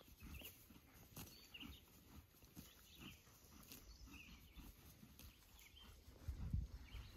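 Horse grazing close by: soft, irregular tearing and chewing of grass. Faint bird chirps sound in the background, and a brief low rumble comes about six seconds in.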